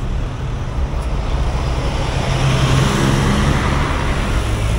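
A city bus passing close by, its engine humming low under tyre and road noise that swells to its loudest about three seconds in, with a van following.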